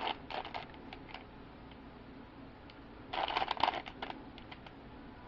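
Plastic 3x3 Rubik's cube being turned quickly in a speed solve: clicking and clacking of layer turns. A flurry comes in the first second, then a lull, then another quick flurry about three seconds in.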